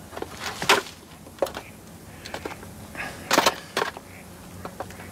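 A few sharp knocks and clatters of people moving about on a boat, footsteps and handling on its woodwork. The loudest come about a second in and again near three and a half seconds, with lighter taps between.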